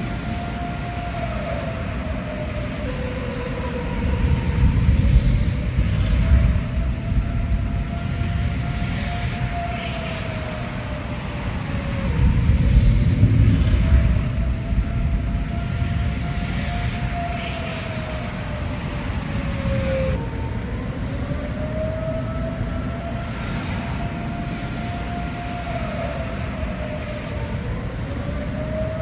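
Outdoor tornado warning siren wailing, its pitch slowly rising and falling about every eight or nine seconds: the signal of a tornado warning. A low rumble runs beneath it and swells twice.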